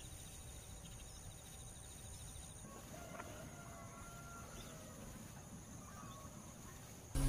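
Faint rural outdoor background: a low, even rumble, with a few faint bird calls from about three to six seconds in.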